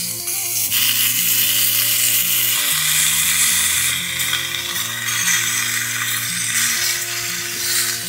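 Bacon slices sizzling in a small pan over a camping gas stove, a steady frying hiss that swells about a second in. Background music plays under it.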